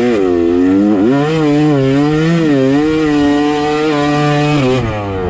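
Yamaha two-stroke dirt bike engine revving hard under load as it climbs a sand hill, the revs wavering up and down with a sharp dip about a second in, then falling away near the end.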